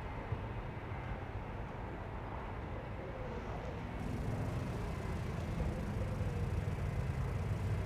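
Designed city ambience mix: a steady rumble of traffic and running engines. It gets louder and brighter about four seconds in.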